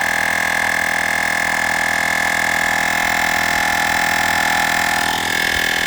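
Olgeo M7 battery-powered portable air compressor running steadily with a high-pitched whine as it inflates a truck tire.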